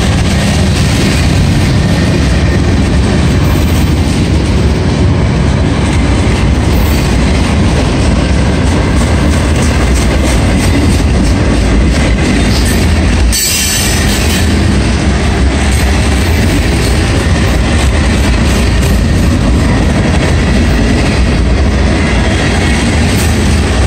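Norfolk Southern freight train's cars rolling past close by: a loud, steady rumble with wheels clattering over the rail joints.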